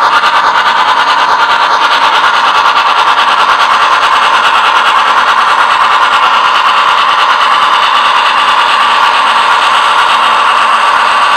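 Onboard sound system of an MTH HO scale 2-8-8-4 Yellowstone steam locomotive model playing fast, even steam chuffing through its small speaker, with little bass.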